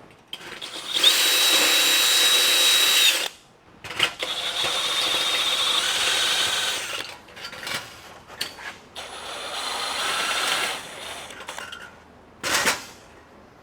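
Electric drill running in three bursts of a few seconds each, drilling a 7/16-inch hole through a Model A Ford trunk lid for the latch handle. A short, sharp knock comes near the end.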